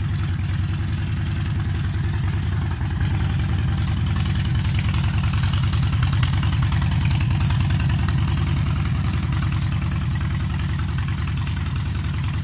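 2008 Harley-Davidson Dyna's Twin Cam 96 V-twin idling steadily, an even run of exhaust pulses. It gets a little louder about three seconds in.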